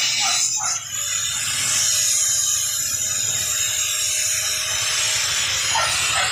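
Angle grinder cutting into a motorcycle's metal muffler canister: a loud, steady high hiss of the disc on metal, dipping briefly about a second in. The muffler is being cut open to gut its insides.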